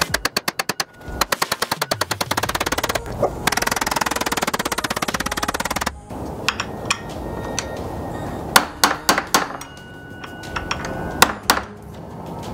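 Ratchet wrench clicking in quick runs as bolts on a T56 transmission's clutch slave cylinder are turned, a faster spell of clicking a few seconds in, then separate clicks and knocks of tools and parts being handled. Background music plays underneath.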